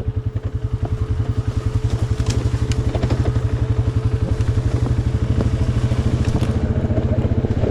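ATV engine running at a steady speed, with a fast, even pulsing and a steady whine, and scattered clicks and knocks from the machine over rough ground.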